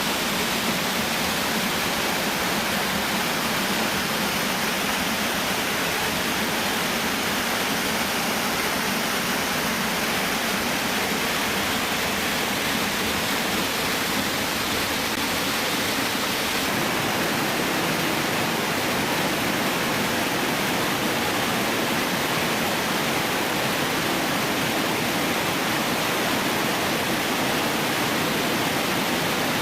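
Waterfall pouring steadily: an even, unbroken rush of falling water with no breaks or changes.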